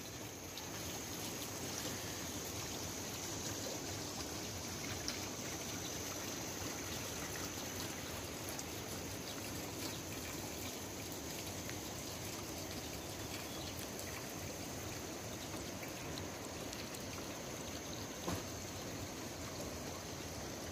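Steady rush of running water, with a faint high insect drone that fades out about eight seconds in.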